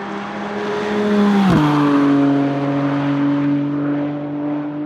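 McLaren Artura GT4 race car's twin-turbocharged 3.0-litre V6 going past at speed with a steady engine note. It grows louder, drops sharply in pitch as the car passes about a second and a half in, then fades.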